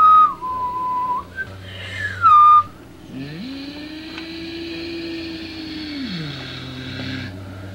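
Sci-fi sound effects. A high whistling tone steps down in pitch, then a second one glides downward. After that a low hum rises in pitch, holds for about three seconds and sinks back, under a steady hiss.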